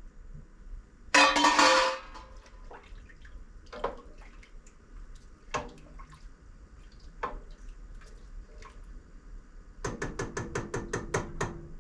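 Kitchen cookware clatter: a loud clang about a second in, a few scattered knocks, then a quick run of about a dozen ringing metal taps near the end.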